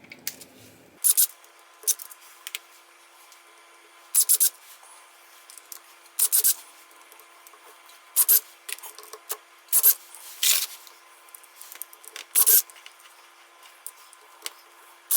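Short rasping strokes of hand-cleaning on a motorcycle engine case part, about a dozen at uneven intervals.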